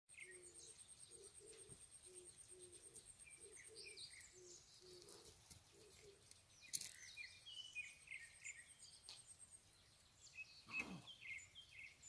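Faint birdsong in a pine forest: several small birds chirping and calling, over a thin, high, even trill that stops and starts again, and a series of low repeated notes during the first half. A single sharp click about seven seconds in.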